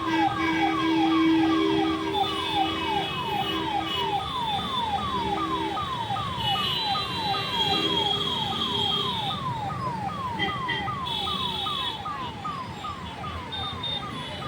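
Police vehicle siren sounding a fast repeating falling sweep, about three sweeps a second, with other steady tones over it at times; it slowly grows fainter near the end.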